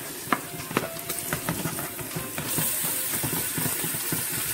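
Pieces of seasoned raw pork tipped into a hot pan of sautéed onions and spices: a patter of pieces landing, then sizzling that grows stronger about halfway through as the meat hits the hot oil.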